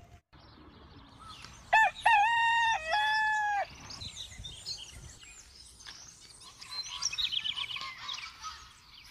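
A rooster crows once, about two seconds in, a loud call in several parts. After it, small birds chirp and twitter, with a quick run of repeated notes near the end.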